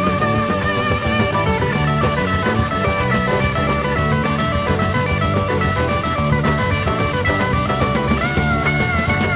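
Instrumental rock music: guitar over a steady drum-kit beat.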